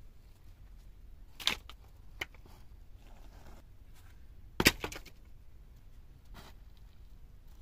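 A wooden branch knocking against stone as it is handled and laid across a dry-stone wall: two sharp knocks about three seconds apart, the second the loudest, with a few lighter taps between and after.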